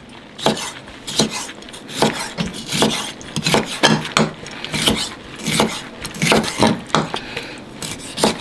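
Knife slicing a crunchy raw sea cucumber on a cutting board, a quick uneven run of short strokes, about three a second.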